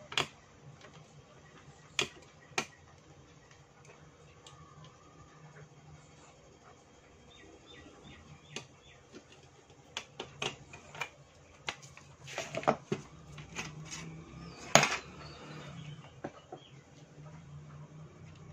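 Hands working small screws and parts into a car stereo's metal chassis during reassembly: scattered light clicks and taps, thickest about ten to thirteen seconds in, with the sharpest click near fifteen seconds. A faint steady low hum lies underneath.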